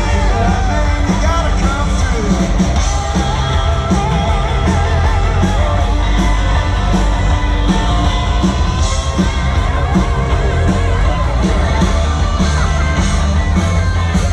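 Live rock and roll band playing a Christmas song, with strong bass and a singer holding wavering notes in the first few seconds.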